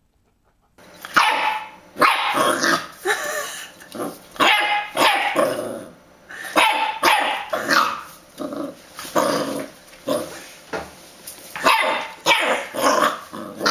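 Dachshund barking and growling over and over in short, rapid volleys.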